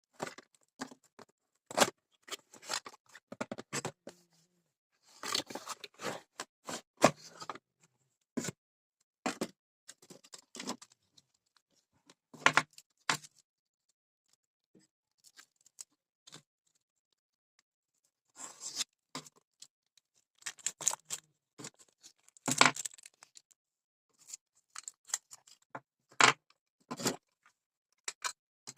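Packaging being opened and handled during an unboxing: irregular rustles, scrapes and sharp clicks in short clusters, with a few seconds of quiet about halfway through.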